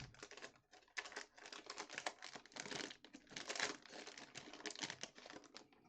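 Wax trading-card pack wrapper of a 1991 Topps Archives pack crinkling and crackling in the hands as it is opened, a dense run of small crackles.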